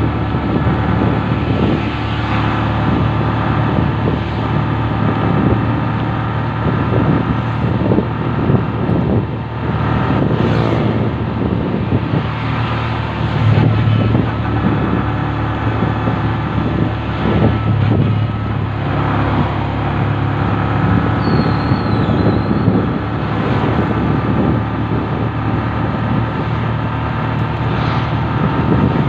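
On-board sound of a motor vehicle travelling along a road: a steady engine hum under continuous road and wind noise.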